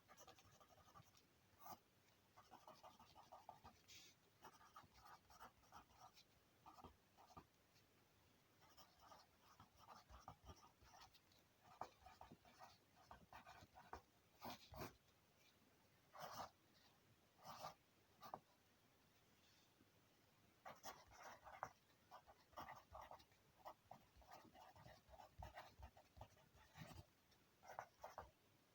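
Pencil writing on paper in a notebook, faint: short runs of scratchy strokes with pauses between them and an occasional sharp tap.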